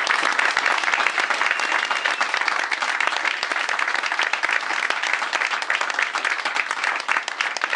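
A roomful of people applauding, a dense steady clapping that eases slightly near the end.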